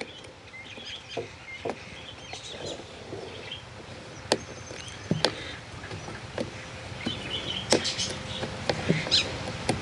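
Scattered sharp clicks and knocks of chainsaw bar and chain parts being handled while the chain tension is set, about eight over several seconds, with faint bird chirps behind.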